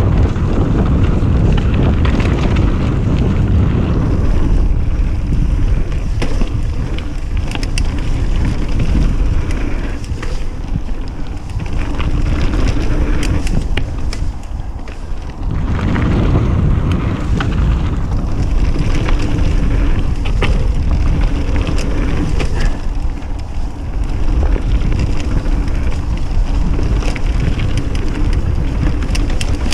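Mountain bike riding fast down a dirt and gravel trail: wind buffeting the microphone, tyres rolling over loose ground, and the bike clattering over bumps in many short knocks. The noise dips briefly near the middle.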